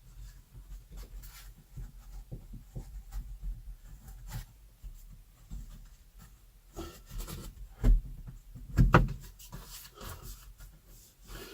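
Scratchy rubbing and small clicks of hands pressing a strip of Velcro into the panoramic roof crossbar and its trim, with two louder knocks about eight and nine seconds in.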